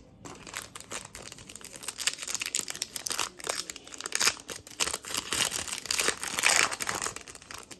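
Plastic-foil trading card pack wrapper being torn open and crinkled by hand, a dense run of crackling and rustling.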